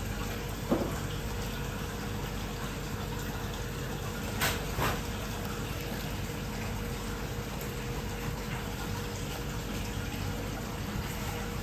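Steady rushing of running water under a faint steady hum, with a short knock about a second in and two light clicks near the middle.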